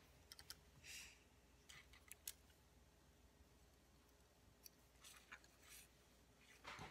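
Near silence, with faint scattered clicks and light rustles of hands handling the small plastic quadcopter frame and its wires.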